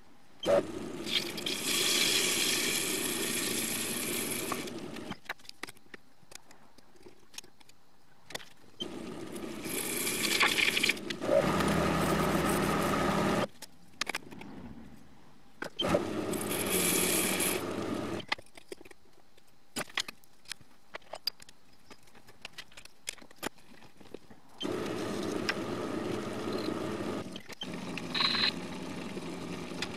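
TV-16 lathe running and turning a brass workpiece, in four stretches of a few seconds each. Between them are quieter gaps with scattered clicks and knocks from handling the work and tooling.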